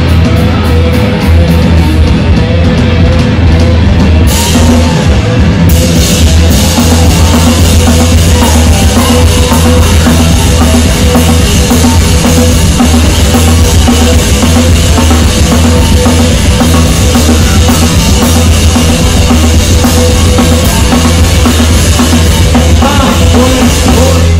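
A live rock band playing loud, with a drum kit, electric guitar and bass guitar.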